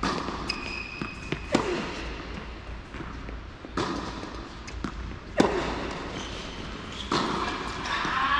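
Tennis balls struck by rackets and bouncing on an indoor hard court: a sharp pop every second or two, echoing in the large hall, with a brief high squeak near the start.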